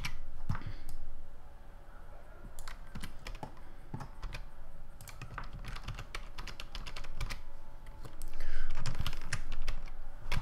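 Computer keyboard keys tapped in short, irregular runs as shortcuts are entered, with a busier, louder run of taps near the end.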